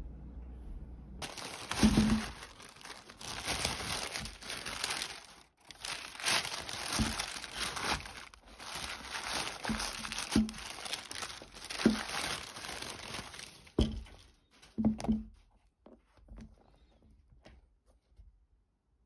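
Tissue paper crinkling and rustling as a pair of sneakers is pulled out of its wrapping, with several dull thumps along the way. The rustling starts about a second in and stops about fifteen seconds in, leaving only a few light handling sounds.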